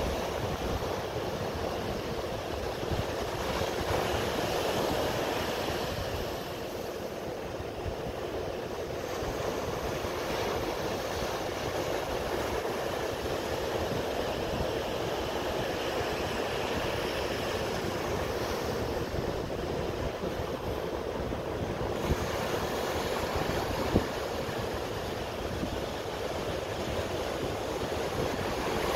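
Rough surf breaking and washing up a sandy beach, a steady rushing noise, with wind buffeting the microphone. Two brief knocks come about three-quarters of the way through.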